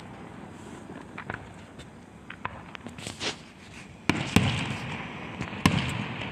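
Aerial fireworks going off: scattered sharp pops and crackles, then a loud boom about four seconds in and another near the end, each followed by a low rumble.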